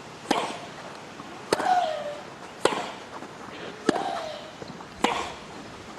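A baseline tennis rally: five racket strikes on the ball, roughly every 1.2 s, each with a short grunt from the player hitting it.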